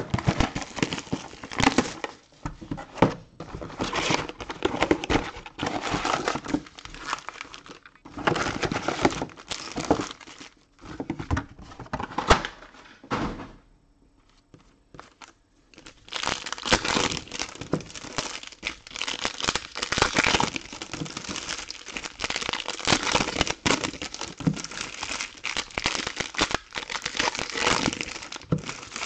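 Crinkling and rustling of foil trading-card pack wrappers and cards being handled, with a quiet pause about halfway through.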